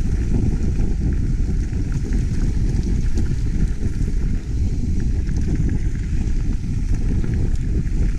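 Wind rushing over the microphone during a fast mountain bike descent: a steady low rumble, with faint ticks and rattles from the bike over rough ground.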